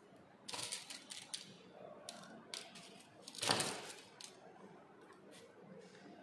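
Small clicks, taps and paper rustles from pins and paper strips being handled on an insect spreading board. There is a quick run of clicks about half a second in and a louder rustle a little past the middle.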